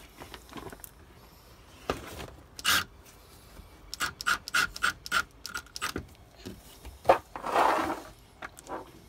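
Cordless drill driving small timber screws through a sail track into a timber bed end, with clicks and scrapes of the bit on the screws. There is a run of quick, evenly spaced clicks in the middle, and a sharp knock followed by a short rasping burst near the end.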